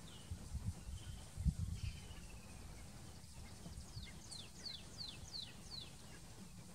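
A bird calling in the bush: a couple of single notes, then about four seconds in a quick run of about six notes, each sliding down in pitch. A faint low rumble lies underneath, with a soft thump about a second and a half in.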